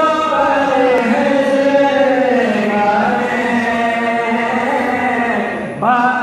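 Male voice chanting a Sufi tarana (devotional anthem) through the hall's microphones, drawing out long sliding notes in one continuous phrase. It breaks briefly near the end before the next line begins.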